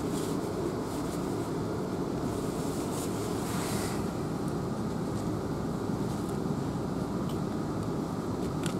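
Steady rumble of a South Western Railway Class 444 electric multiple unit running along the line, heard inside the passenger coach, with a faint click near the end.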